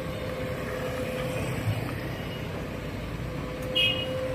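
Sumitomo hydraulic excavator running while it loads soil into a dump truck: a steady engine rumble with a constant mid-pitched whine. A brief high squeal sounds near the end.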